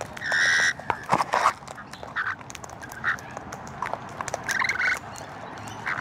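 Wild parrots giving short, harsh squawks several times, the loudest about half a second in, among scattered clicks and taps.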